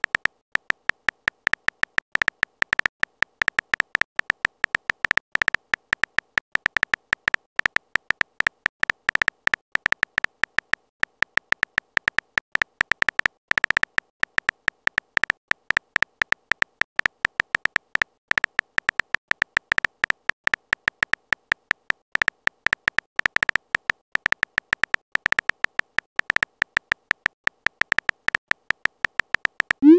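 Texting-story keyboard sound effect: a fast, uneven run of short high electronic ticks, one for each character as a message is typed out.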